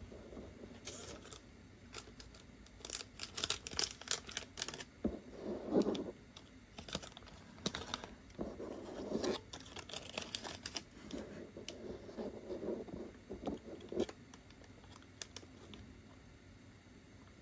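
Irregular clicks, taps and rustles of small objects and packaging being handled on a desk, coming in clusters and dying away near the end.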